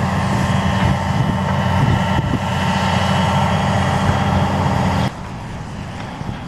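Heavy diesel engine of an excavator running steadily, with a low even hum, until it drops abruptly to a much quieter background about five seconds in.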